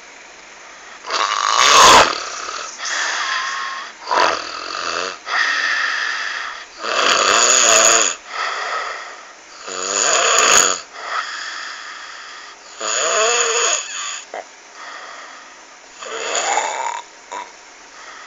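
Loud snoring: a run of separate snores, one every second or two, some with a wavering pitch.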